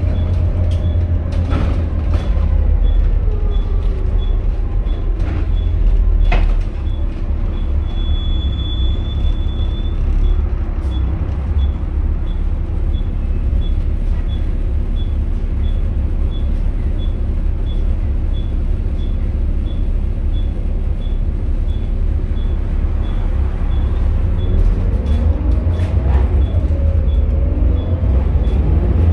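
Volvo B7TL double-decker's six-cylinder Volvo D7C diesel heard from inside the bus: the engine note falls as the bus slows to a stop, with a brief sharp sound about six seconds in. It then idles for a long stretch and rises again as the bus pulls away near the end. A faint high tick repeats steadily throughout.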